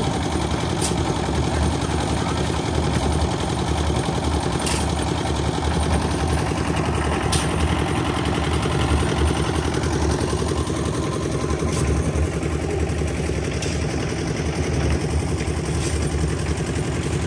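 An engine running steadily with a fast, even pulse, with a few sharp clicks over it.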